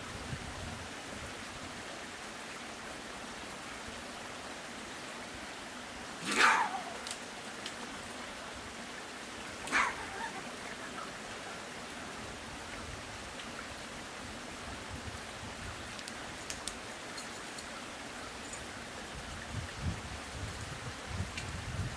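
A trapped raccoon gives two short, sharp cries that fall in pitch, about six and ten seconds in, over a steady hiss of rain.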